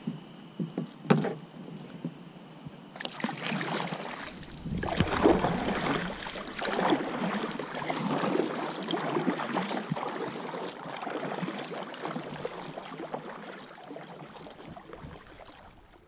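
Kayak paddling: the paddle blade splashes and pulls through the water in repeated strokes, about one a second, fading out near the end. A few light knocks of gear on the hull come first.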